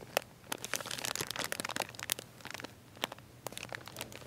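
Plastic bags of dry cat food, among them a Purina Cat Chow Complete bag, crinkling and crackling under a hand that presses and rubs them. The sharp crackles come thickest in the first two seconds and thin out after.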